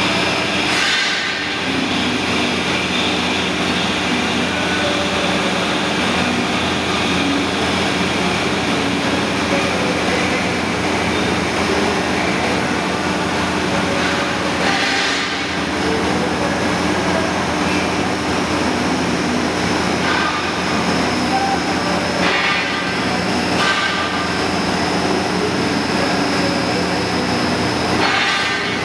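Heavy-duty chain-driven live roller conveyor and turntables running: a loud, steady mechanical rumble with a constant motor hum, and a few brief louder rattles.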